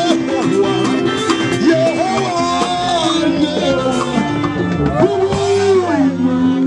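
Live band music: a man singing a melody into a microphone over drum kit and guitar, loud and continuous.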